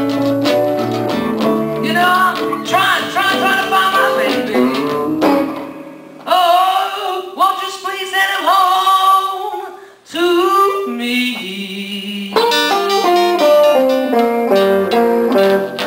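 Live blues played on guitars, with a lead line of bent, sliding notes through the middle while the low accompaniment drops out, then fuller picked playing resumes near the end.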